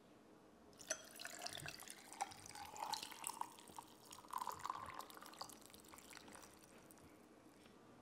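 Green tea poured into a glass over mint ice cubes: the liquid splashes and gurgles with many small sharp clicks. It starts about a second in and trails off a couple of seconds before the end.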